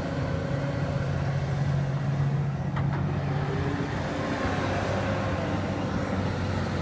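Excavator's diesel engine running steadily while it digs, with a brief faint click about three seconds in.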